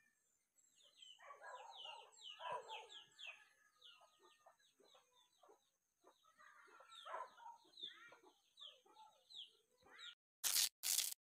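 Chicken clucking: a rapid run of short falling calls, with fuller squawk-like clucks in two spells. Two short, loud bursts of noise come near the end.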